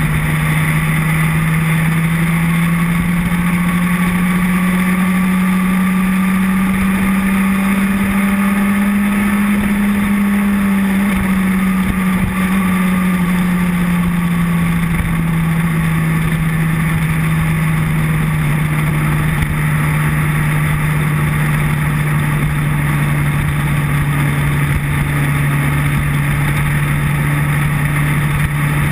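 Motorcycle engine running at a steady cruise, its note rising slightly about a third of the way in and easing back down a few seconds later, with wind rush over the bike-mounted microphone.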